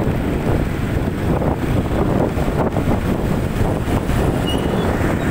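Wind rushing over the phone's microphone on a moving motorcycle, a loud steady rumble with road and traffic noise underneath.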